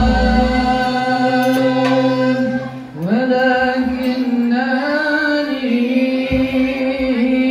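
A solo voice singing sholawat, holding long ornamented notes, with a brief pause for breath about three seconds in before a rising new phrase. A few short low thumps sound near the start and near the end.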